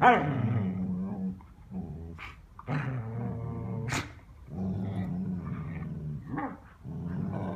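Dogs play-growling while tugging a plush toy between them: low growls in stretches of about a second with short gaps, and one short sharp sound about four seconds in.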